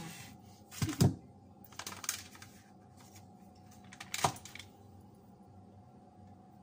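Kitchen items being handled on a countertop, giving a few sharp knocks and clicks: a heavier knock about a second in, a cluster of lighter clicks around two seconds, and one more click a little after four seconds.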